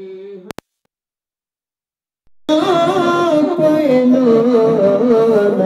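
Voices singing a drawn-out line of a devotional naat. About half a second in, two clicks cut the sound off into dead silence for nearly two seconds, a dropout in the recording. Then the singing comes back louder and fuller, with a wavering melody.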